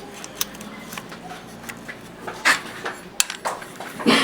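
Scattered sharp metallic clicks and clinks of hand tools on the valve gear of a Ford 5000 tractor engine during valve clearance adjustment, with the engine not running.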